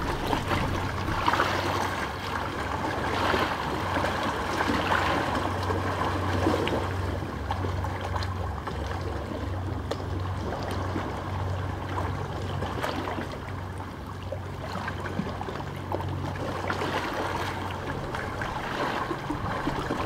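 Small sea waves lapping and trickling among the stones at the shoreline, swelling and ebbing in uneven washes, with a low steady hum underneath.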